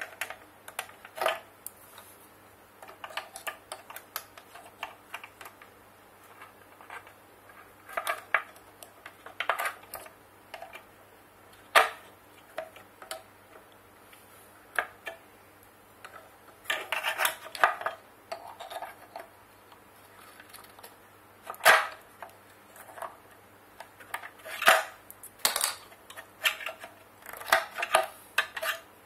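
Irregular sharp clicks and short rattling clatters of hard plastic and metal parts being handled inside a rice grinder's motor housing. The damaged 6 MFD motor capacitor and its wire connectors are being pulled out.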